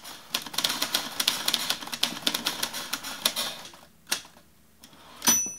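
Typewriter keys clattering rapidly for about three seconds, then a few spaced keystrokes, and a final strike near the end followed by a short ringing ding like a typewriter's carriage-return bell.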